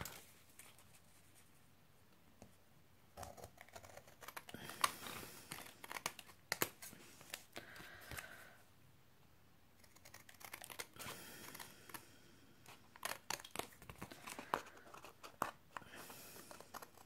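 Scissors snipping through strips of card stock as the overhanging scrap ends are trimmed off the edges of a card panel, with paper rustling as the card is turned. The cutting comes in two spells, with a short lull about halfway.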